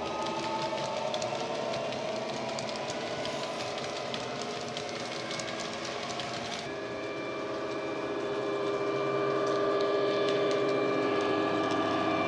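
Model Class 66 diesel sound from an ESU LokSound decoder through a small EM2 speaker: the recorded EMD two-stroke V12 engine running steadily under power. Fine rapid clicking of the model wagons' wheels rolling on the rails runs through the first half. About two-thirds of the way in the sound changes abruptly and then grows louder as the loco approaches.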